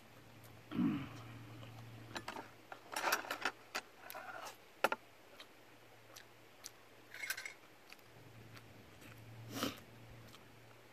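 Close-up eating sounds: metal chopsticks and spoon clicking and scraping against a plastic food container, with chewing and mouth noises and a short falling hum about a second in.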